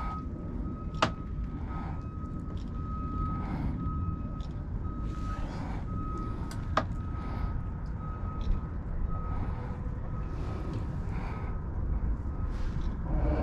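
A high electronic beep repeating steadily, like a reversing alarm, over a low steady rumble; the beeping stops shortly before the end. Two sharp clicks sound, about a second in and again near the middle.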